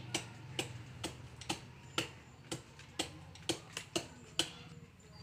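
Sharp knocks from pounding on a coconut palm trunk, about two a second, with a quick run of three just before they stop about four and a half seconds in.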